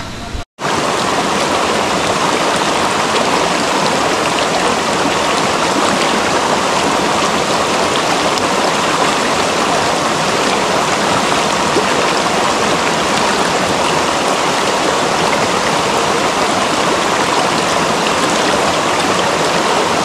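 Mountain stream water rushing steadily. It cuts in abruptly about half a second in.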